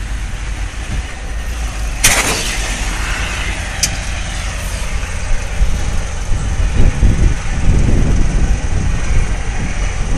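Steady low rumble of idling fire engines, with one sharp bang and a short hiss about two seconds in and a small click a couple of seconds later. Heavier, uneven low rumbling takes over in the last few seconds.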